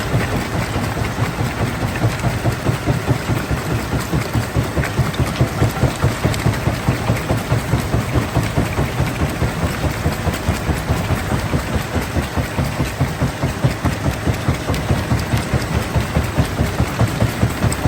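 Heavy stone-crushing machinery running steadily, with a low throb pulsing about four times a second.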